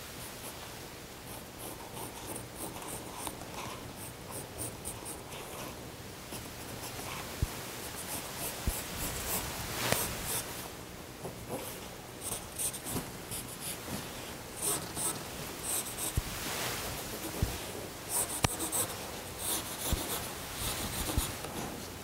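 Pencil scratching on upholstery fabric as it traces around the edge of an old seat-cover pattern piece, in short repeated strokes with brief pauses, with a few light taps.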